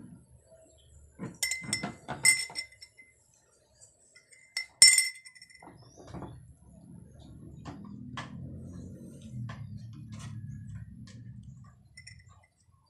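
Metal spoon clinking against a ceramic coffee mug as the coffee is stirred: a quick run of ringing clinks in the first few seconds and one loudest clink about five seconds in. After that a low, steady rumble goes on until just before the end.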